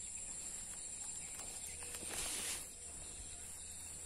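Steady high-pitched chorus of insects, crickets or similar, in grass and scrub, with a brief rustle about two seconds in.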